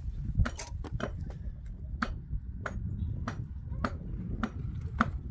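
Hammer blows at a steady pace, one sharp strike about every 0.6 seconds, as in nailing during house building, over a low steady rumble.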